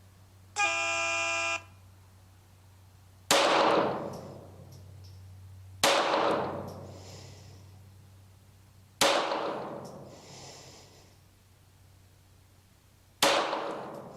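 An electronic start beep of about one second, then four single shots from a CZ Kadet .22 LR pistol, spaced about three seconds apart, each with a ringing echo that dies away over a couple of seconds. This is the start signal and firing of a timed-fire bullseye string.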